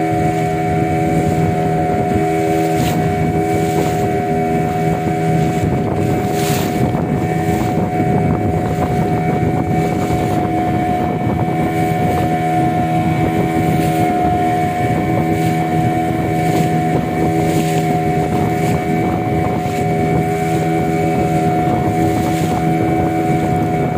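Small tour boat's engine running steadily under way, holding one even pitch, with wind on the microphone.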